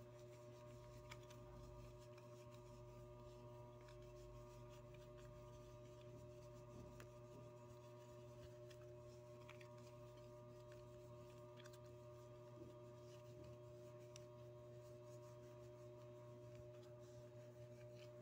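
Near silence: a faint, steady hum of room tone, with a few faint ticks.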